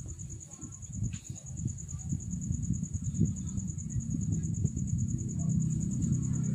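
Industrial sewing machine stitching: a rapid low chatter that grows louder and steadier from about two seconds in.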